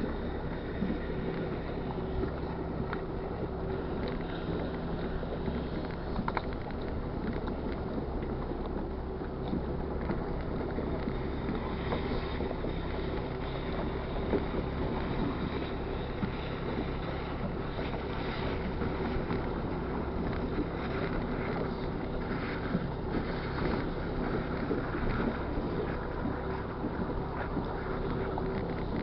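Motorboat's engine running steadily with an even hum while the boat is under way, with wind buffeting the microphone.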